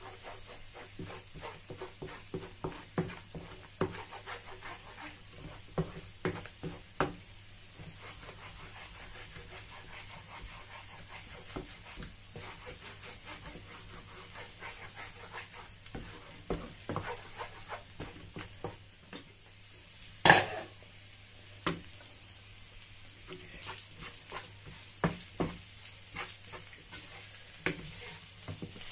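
Wooden spatula stirring and scraping food around a non-stick frying pan, with irregular knocks of the spatula against the pan over a light sizzle of frying. One sharp, louder knock about twenty seconds in.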